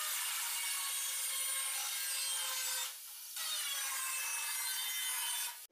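Angle grinder with a cutting disc slicing through thin galvanized steel sheet: a steady, high-pitched grinding whine. It drops off briefly about three seconds in, then resumes and stops just before the end.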